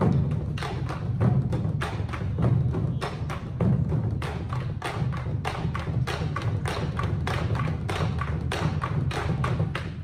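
Ensemble of Korean barrel drums on stands struck together with wooden sticks, a fast, even rhythm of several beats a second.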